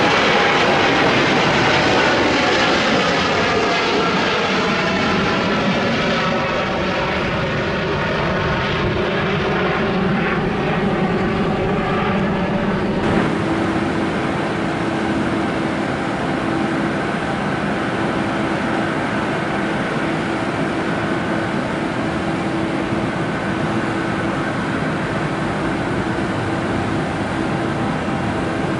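Boeing 787 jet engines as the airliner climbs away overhead, their whine falling in pitch as it passes. About 13 s in the sound changes abruptly to the steady engine noise of a four-engine Boeing 747 freighter rolling on the runway, with a held tone.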